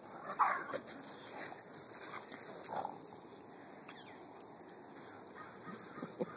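A dog making a few short, faint noises while it plays: one about half a second in, another near three seconds, and several more near the end.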